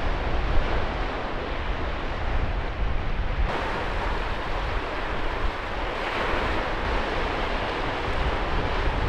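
Small waves breaking and washing over a rocky seashore, with a low rumble of wind on the microphone.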